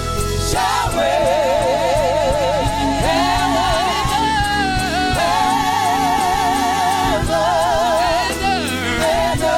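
Gospel music: voices sing long held notes with wide vibrato over a band with bass and steady percussion.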